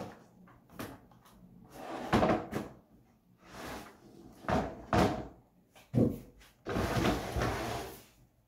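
Hand painting work: a string of knocks and short scraping strokes from the tools, with a longer stretch of scraping near the end.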